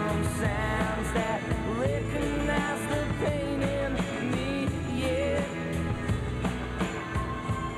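Background music: a rock song with a singing voice over a steady drum beat and bass.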